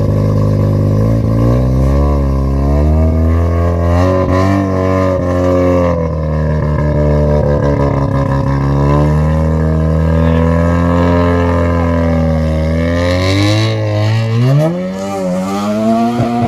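Mazda RX-7 drift car's engine revved and held at high revs, the pitch swelling up and down. About 13 seconds in it drops, then climbs again.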